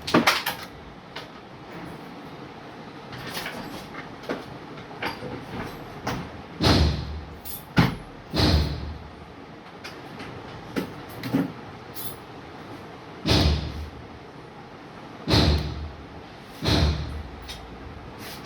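A series of about eight dull thumps and knocks at irregular intervals, handling noise from objects being moved and set down on a workbench, over a low steady background.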